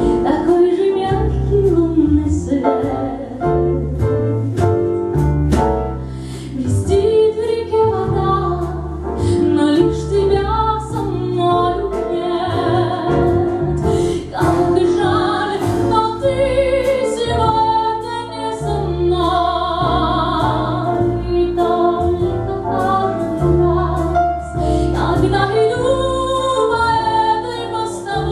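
Russian pop song: a woman singing over a steady, pulsing bass beat with keyboard backing.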